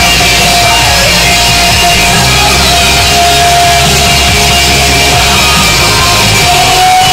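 Loud rock music.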